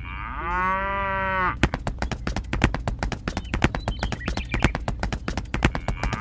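Cow mooing once, then a quick, uneven clip-clop of hooves for about four seconds: farm-animal sound effects.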